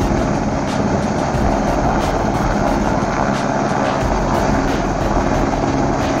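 Helicopter hovering overhead with a bundle of logs slung on a longline, its engine and rotor running steadily and loudly.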